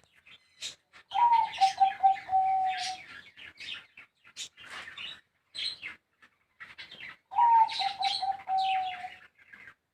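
A high-voiced zebra dove cooing twice: each phrase opens with a higher note, runs into a quick string of short notes and ends on a longer held note. Other small birds chirp throughout.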